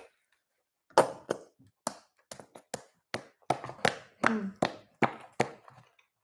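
A palm smacking the base of an upside-down squeeze bottle of sauce, a run of sharp smacks about three a second, to shake the sauce down to the nozzle. The smacks start about a second in.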